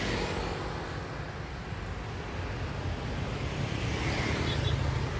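Road traffic noise: a steady low engine and tyre rumble from moving cars and motorbikes, rising a little as a car passes close alongside about four seconds in.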